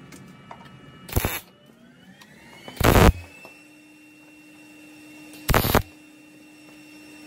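MIG welder tack-welding thin sheet-metal patch panel: three short bursts of sizzling arc, each well under half a second, a couple of seconds apart. A steady low hum comes in about halfway through.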